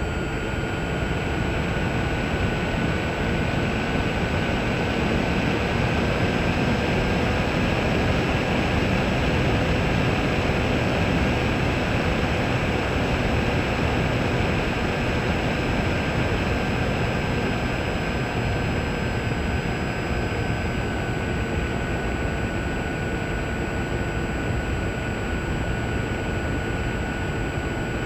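Small multirotor drone's motors and propellers heard through its own onboard camera: a steady high whine over rushing wind noise. The pitch shifts slightly a couple of times.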